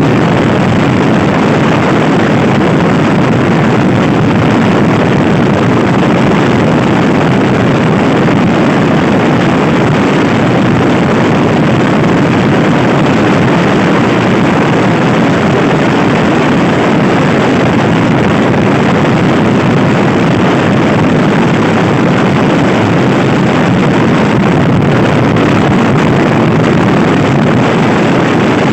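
Loud, steady wind rushing over the microphone of a Honda Scoopy-i scooter ridden at speed. The wind covers any clear sound of the engine.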